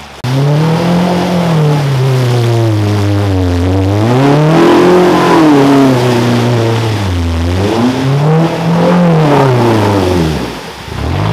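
Toyota Surf/4Runner engine revving hard while pushing through a deep, fast river crossing. The revs climb and fall in about three surges, with the rush of water and spray underneath.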